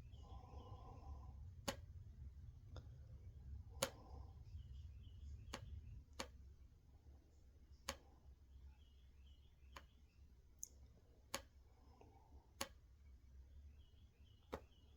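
Near silence broken by faint, sharp clicks at irregular intervals, about one every second or two, over a low hum that fades out about six seconds in.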